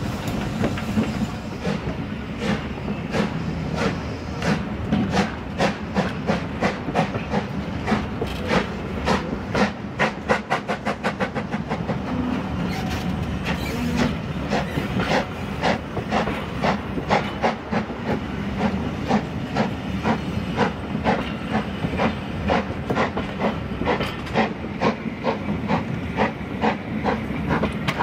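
Steam-hauled passenger coaches rolling past close by, their wheels clicking over the rail joints in a steady clickety-clack over a continuous hiss.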